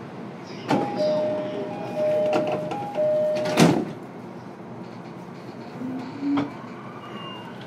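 E233-series train door chime sounding three high-then-low two-note pairs, ending in a loud thud as the sliding doors close. A smaller knock follows about three seconds later, over the steady hum inside the car.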